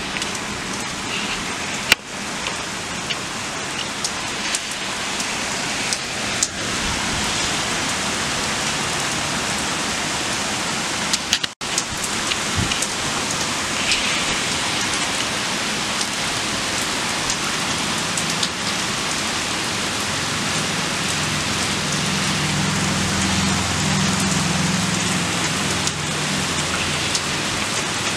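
Heavy rain pouring down steadily onto roofs and pavement, with a brief break in the sound near the middle.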